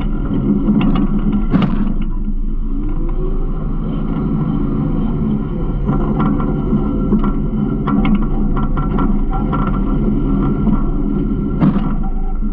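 Garbage truck engine running steadily, with frequent knocks and rattles. A brief rising tone comes about two seconds in, and sharp knocks come near the start and near the end.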